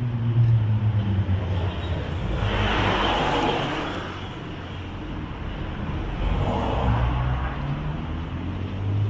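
City street traffic: a car passes about two and a half seconds in and another near seven seconds, each a rush that swells and fades, over a steady low hum.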